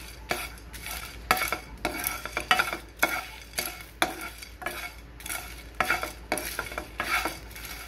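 A spatula stirring whole spices in a dry nonstick pan: repeated scraping strokes, about two a second, with cumin seeds, peppercorns and dried chillies rattling across the pan surface as they dry-roast.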